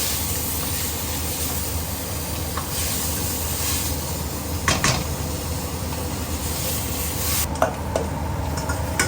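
Shepherd's purse greens sizzling in hot oil in a wok while being stir-fried, with a few sharp knocks of the spatula against the wok. About seven and a half seconds in, the sizzle suddenly drops off.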